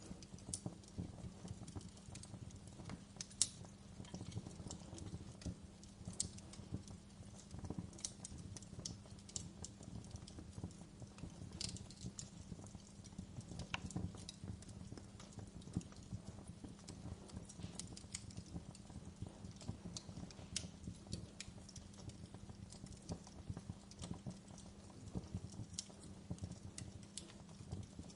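Wood fire crackling in a fireplace: irregular pops and snaps over a low steady rumble of the flames.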